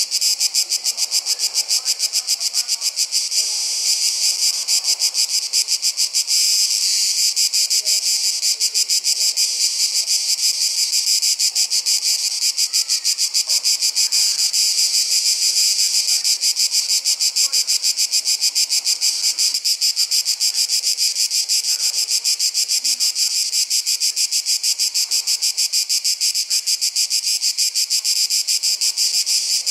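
Chorus of summer insects chirring: a loud, high-pitched buzz in a rapid, even pulse.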